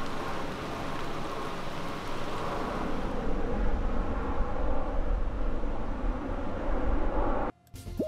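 Outdoor street ambience: a steady hiss of water and distant traffic, joined by a strong low rumble from about three seconds in. It cuts off suddenly near the end.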